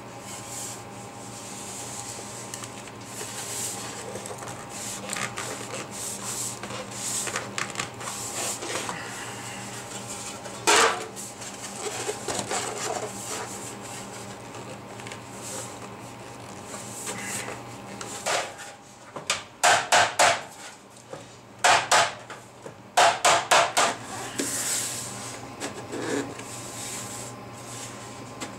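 A thin aluminum sheet is pressed and bent by hand around a PVC pipe, rubbing and scraping against it. There are occasional sharp knocks and snaps from the sheet, one about a third of the way in and a loud cluster about two thirds of the way through.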